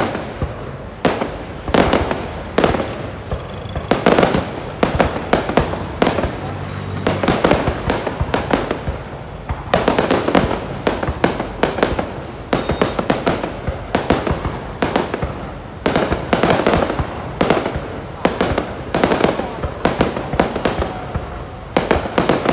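Aerial fireworks display: a rapid, unbroken run of bangs and crackling bursts, several a second.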